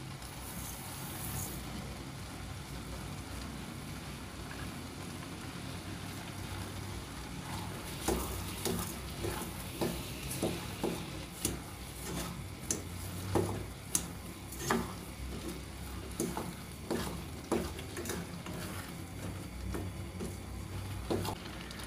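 Grated carrots for gajar ka halwa cooking down in a steel karahi with a steady low sizzle, the milk nearly dried off and sugar just added. From about eight seconds in, a wooden spatula stirs the mix, scraping and knocking against the pan at irregular intervals.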